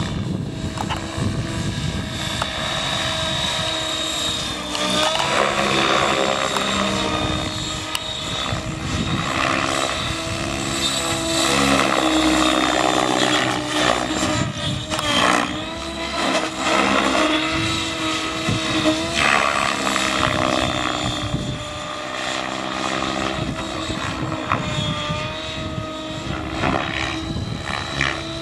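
Align T-Rex 700 DFC electric RC helicopter in flight: steady whine of its motor and main rotor, with the pitch dipping and recovering briefly several times through the manoeuvres.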